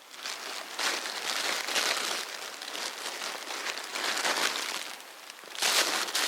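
Irregular rustling and crinkling in several bursts, the strongest one near the end.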